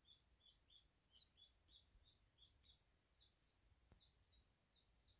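Baby quail chicks peeping faintly in a steady, rapid series of short rising peeps, about three a second.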